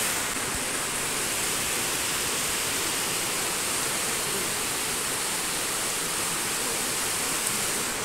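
Steady rushing of a waterfall: an even, unbroken noise of falling water.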